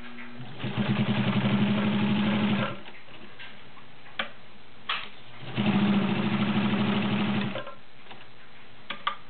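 Kenmore Model 50 sewing machine, driven by a 1.2 amp Kenmore motor, running in two bursts of about two seconds each with a fast, even stitch rhythm as it sews through a stack of fourteen layers of fabric. A few sharp clicks come between the bursts and near the end.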